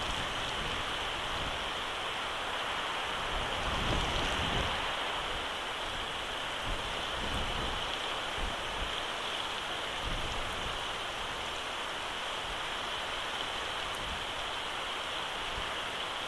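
Steady hiss of rain and sleet falling on the eagle nest, with occasional low gusts of wind buffeting the microphone.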